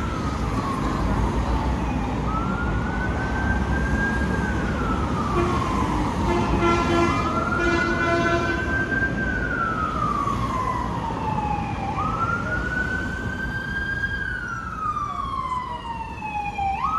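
Emergency vehicle siren wailing in a slow rise and fall, each cycle about five seconds long, over steady street traffic. A horn sounds in a few short blasts around the middle.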